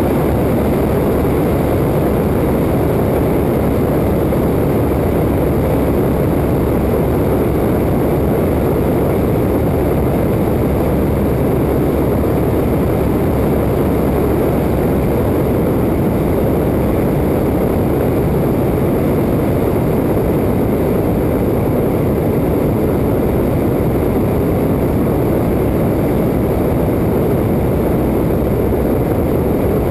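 Open-cockpit Waco biplane in flight: the engine and propeller run steadily, blended with the rush of air over a camera mounted outside on the wing. Loud and unchanging throughout.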